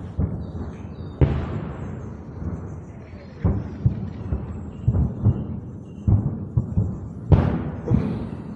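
Artillery cannonade: a near-continuous run of booms and deep thuds that echo away through the forest, two of them much louder, about a second in and near the end.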